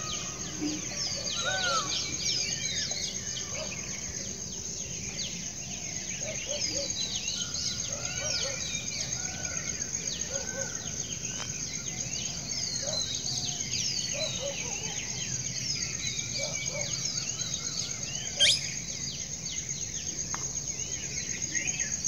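Many birds chirping and calling in quick, overlapping short notes over a steady high-pitched insect drone. One sharp knock stands out about three-quarters of the way through.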